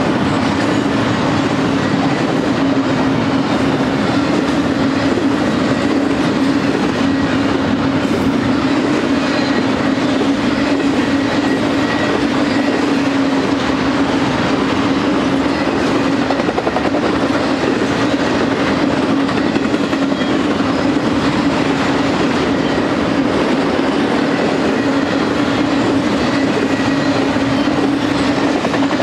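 Intermodal freight train's cars (double-stack container well cars, then trailers on flatcars) rolling past: a steady noise of wheels on the rails with a steady low hum running under it.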